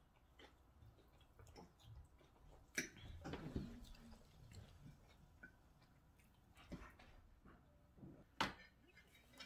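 Quiet eating sounds: a person chewing food, with a few sharp clicks of a fork against a plate, the loudest near the end.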